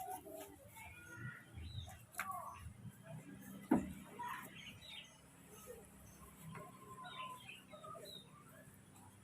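Young monkeys giving many short, high squeaks and chirps while they play, with a few clicks and a sharp knock a little under four seconds in.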